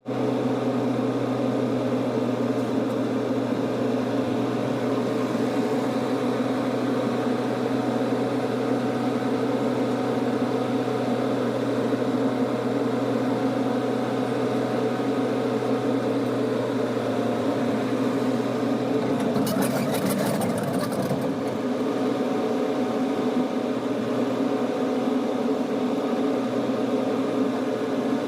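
Small excavator's engine running steadily, with a brief metallic clatter about twenty seconds in.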